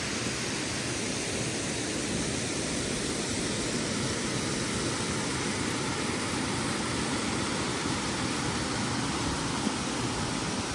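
Mountain waterfall and its rocky stream rushing steadily, a constant full hiss of falling and splashing water.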